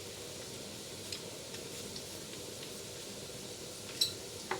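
Spices and chopped ginger and garlic frying in hot mustard oil on a low flame: a steady soft sizzle with a few small crackles and one sharper click about four seconds in.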